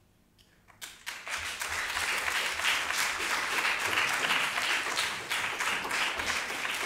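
Audience applauding. It starts about a second in, out of near silence, and keeps up steadily.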